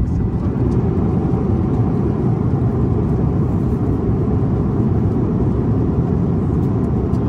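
Airliner cabin noise: the steady low rumble of the jet engines and airflow heard from inside the cabin in flight.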